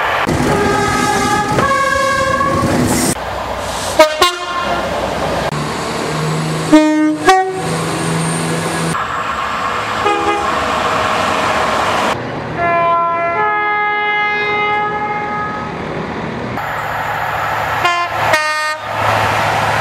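A quick succession of British trains sounding their two-tone air horns, cut one after another every few seconds. Each horn blows one note, then another of different pitch, over the noise of the passing trains.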